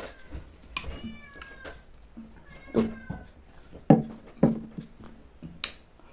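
Metal spoon clinking and scraping against a glass bowl while scooping fruit out of syrup, with several sharp clinks, the loudest about four seconds in. About one and three seconds in come two faint, slightly falling high squeaks.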